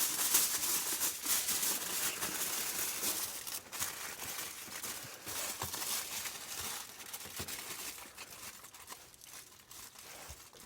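Aluminium foil crinkling and crumpling as it is wrapped around a sweet potato, a dense papery crackle that is loudest in the first few seconds and slowly fades toward the end.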